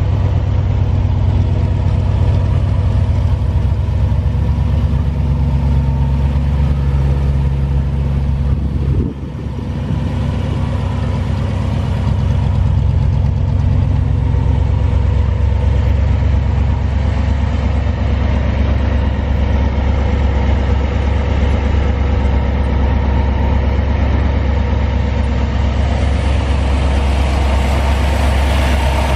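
1956 Ford Thunderbird's Y-block V8 idling steadily, with a brief dip in level about nine seconds in.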